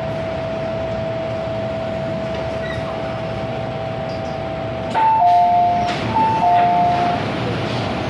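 Inside an MTR M-Train carriage, a steady hum carries a constant whine. About five seconds in, a two-note chime, a short high note then a longer low one, plays twice, ahead of an onboard announcement.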